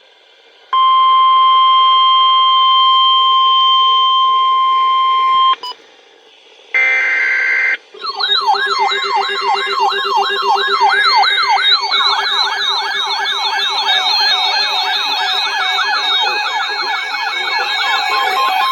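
Weather alert radio tones: a steady single-pitch alarm tone of about 1 kHz for about five seconds, then a short burst of data-like noise, then several overlapping warbling siren-like alarms, each sweeping up and down about three times a second, with more joining about halfway. They sound the start of a new severe-weather alert.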